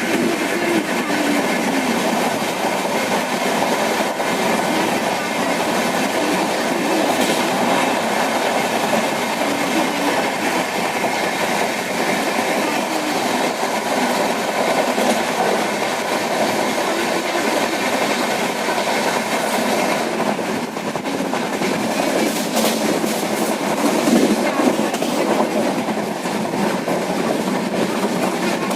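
Moving train running along the track: a steady rumble with wheel clatter over the rails, and a run of sharper clacks in the last third.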